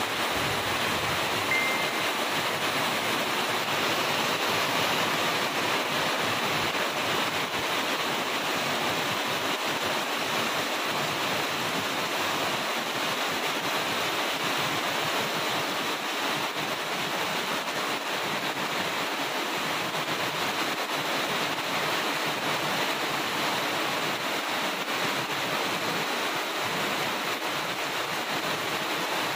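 Heavy rain pouring steadily onto banana plants, leaves and grass, an even hiss with no let-up.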